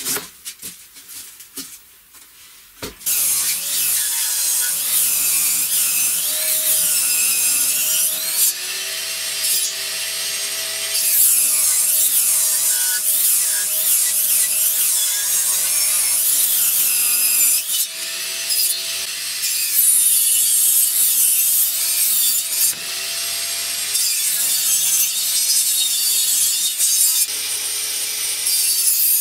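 Table saw running and ripping wood along the fence, its blade whine dipping and rising as the cut loads it. A few knocks of wood being handled come in the first few seconds, before the saw starts.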